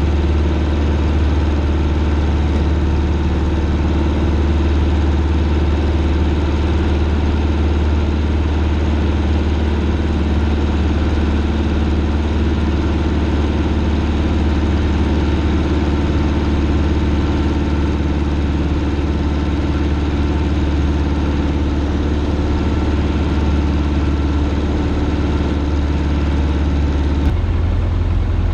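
Single-engine Cessna's piston engine and propeller droning steadily in cruising flight, heard inside the cockpit along with the rush of air over the cabin. A little before the end the drone changes slightly in tone.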